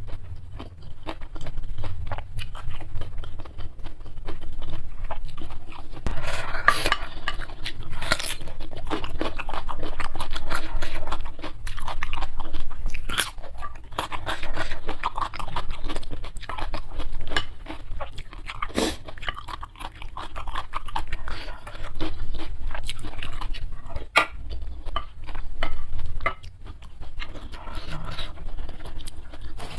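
Close-miked eating: irregular crisp crunches from biting into crunchy food, with chewing between them.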